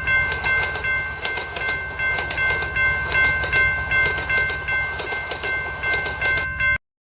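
Train running past a level crossing as a cartoon sound effect: wheels clicking over the rail joints over a low rumble, with a steady high ringing tone that breaks briefly at regular intervals. It all cuts off suddenly near the end.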